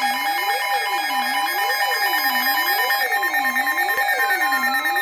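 Layered electronic emergency alert tones: several steady and pulsing beeps over a tone that sweeps up and down about once a second, with falling tones sliding down from about two seconds in.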